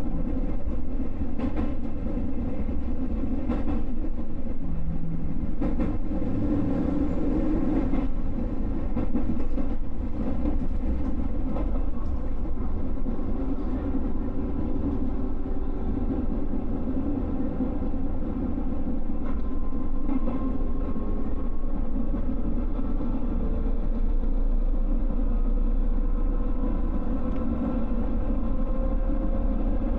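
JR West 221 series electric train heard on board, a steady rumble with light rail clicks. From about halfway a motor and gear whine slowly rises in pitch as the train gathers speed.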